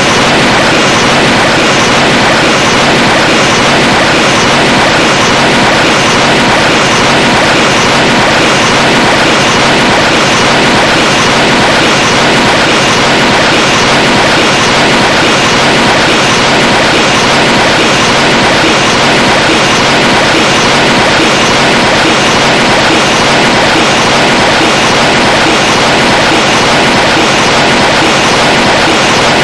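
Steady, loud rushing noise that holds unchanged throughout, with no pitch or beat of its own.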